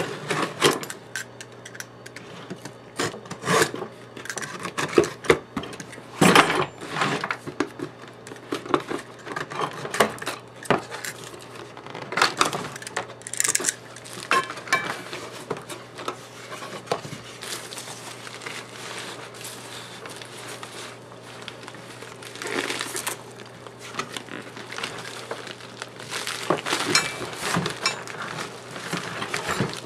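A cardboard shipping box being opened by hand: a blade slitting the packing tape, the flaps pulled open, and foam packing peanuts rustled and scraped as hands dig through them, in irregular scrapes, rubs and knocks.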